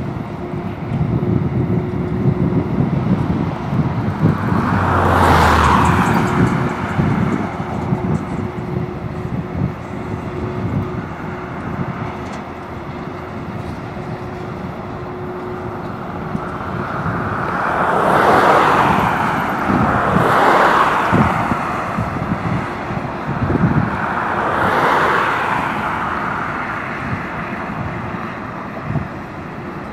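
Freight train of coal hopper cars rolling slowly past, with a steady rumble of wheels and a clatter of clicks and knocks from wheels and couplers. Several louder rushing swells come and go, about five seconds in, again from about eighteen to twenty-one seconds, and near twenty-five seconds.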